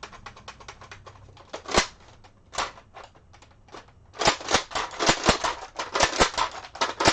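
Sharp plastic clicks from the empty Nerf Longstrike CS-6 blaster being worked and dry-fired with no darts loaded. A few clicks come at first, then from about four seconds in a quick run of about five clicks a second.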